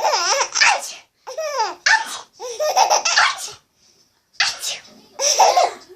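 A small child laughing hard in several high-pitched bursts, with short breaks between them.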